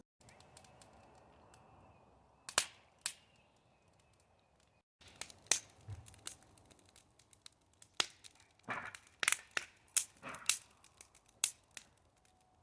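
Wood fire crackling in a washing-machine-drum fire pit, with irregular sharp pops that come more often in the second half.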